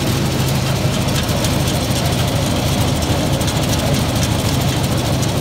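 Wood pellet mill running with a steady, even hum. Fresh pellets and sawdust drop down its metal chute onto a mesh screen with a light rattle.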